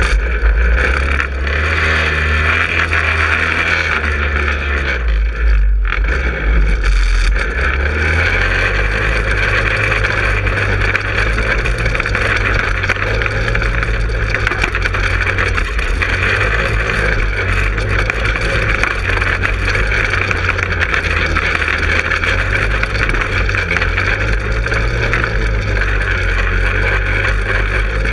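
Manco Helix 150 go-kart's 150 cc engine pulling away from a stop near the start, its note changing over the first several seconds, then running steadily under throttle as the kart drives along.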